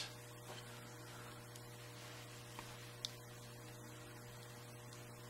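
Faint steady electrical hum, with a few small clicks from handling a brass lock cylinder while it is being disassembled, the sharpest one about three seconds in.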